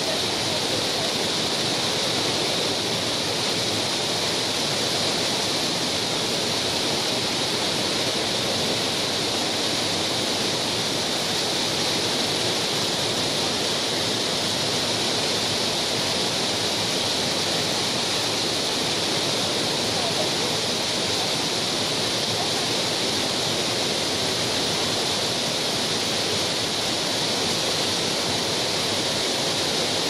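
The Rhine Falls: a large waterfall's steady, unbroken rush of falling water, heard close to the falls.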